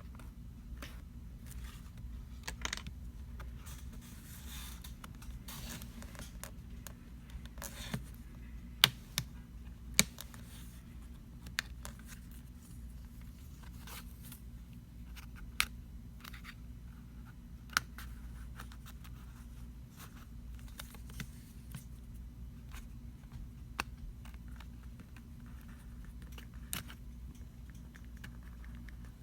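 Thin plastic pry tool scraping along the seam between a smartphone's frame and its LCD screen as the two are separated, with scattered sharp clicks and snaps.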